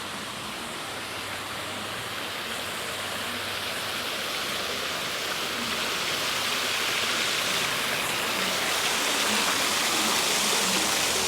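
A steady rushing noise of running water, growing slowly louder.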